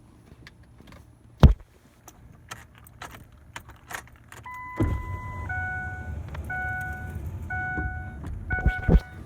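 Clicks and a single sharp thump in a pickup truck cab. From about halfway, a steady beep and then a dashboard warning chime repeating about once a second over a low rumble, with two more thumps near the end.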